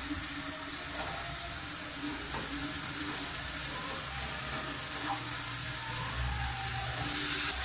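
Chopped onion, tomato and chile sizzling steadily as they sauté in butter in a frying pan, stirred with a wooden spatula.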